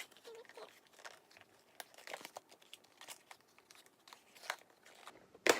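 Packaging being handled and pulled at while a GoPro camera is worked out of its box: irregular rustling and crinkling with small clicks, and one sharp, louder click near the end as a piece comes free.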